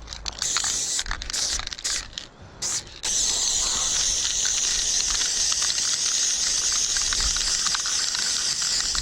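Aerosol spray-paint can spraying: a few short bursts of hiss, then from about three seconds in one long, steady spray lasting about six seconds.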